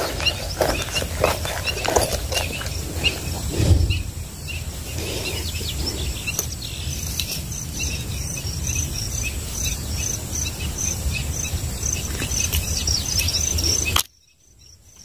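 Birds chirping over a steady low rumble. From about halfway, a short high-pitched call repeats evenly, roughly twice a second. The sound cuts off abruptly near the end.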